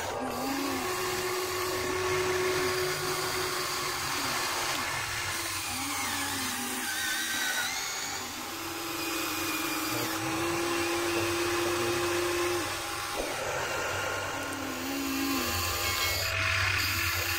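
Small electric motors of Huina RC excavators whining as the booms, arms and buckets move, several tones overlapping. The pitch holds steady for a second or two, then slides up and down as each movement starts and stops.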